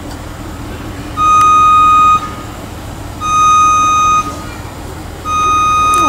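Aerial lift's warning beeper sounding three one-second beeps, one every two seconds, over the steady low hum of the lift's engine.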